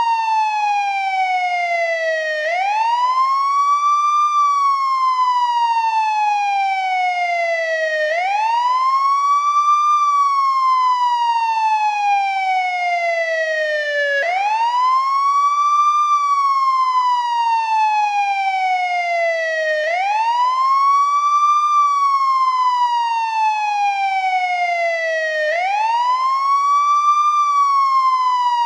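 American ambulance siren on its wail tone, an older-style wail. The pitch climbs quickly, then slides slowly back down, the cycle repeating about every six seconds, five climbs in all.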